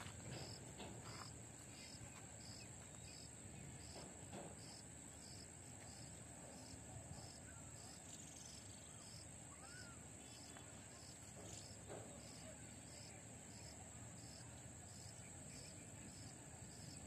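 Faint, steady high-pitched insect chirring, with a softer pulsing note about twice a second beneath it, and a few faint clicks.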